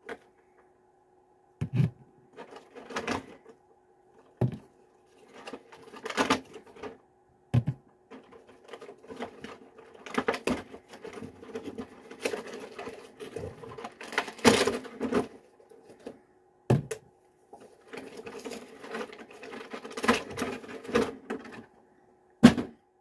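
Handling noise from small hot sauce bottles and their packaging: irregular clicks, knocks and rustling, with a faint steady hum underneath.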